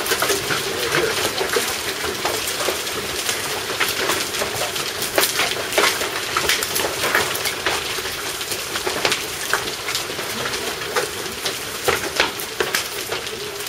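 Hail and rain coming down hard: a steady hiss of rain dotted with many sharp ticks of hailstones striking hard surfaces.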